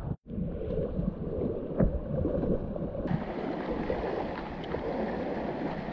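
Seawater sloshing and splashing around legs as a person wades through shallow water among rocks.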